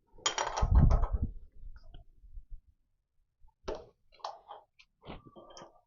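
Small metal workshop parts being handled: a knock and rattle lasting about a second near the start, then a few light clicks and taps.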